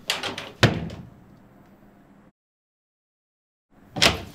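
A door being shut, two sharp knocks about half a second apart. Then a stretch of dead silence, and another knock near the end.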